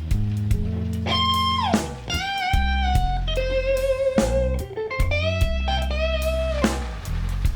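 Music: an electric guitar lead with sliding, bending notes over a steady bass line and drums, in a blues-rock style.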